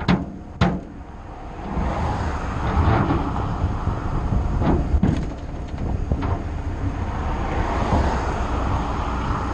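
Traffic passing on a main road, cars swishing by one after another over a steady low rumble, with two sharp knocks near the start.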